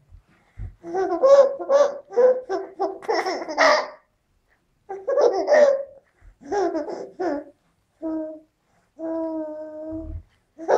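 Baby laughing in several bouts of quick, pulsing giggles, with babbling between them and one longer, steadier held sound near the end.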